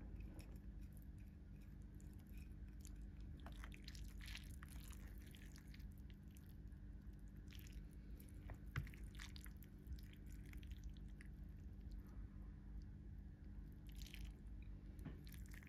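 Faint soft clicks and wet squishy noises of chopsticks working through noodles in a ramen bowl, with one sharper click about halfway through, over a steady low hum.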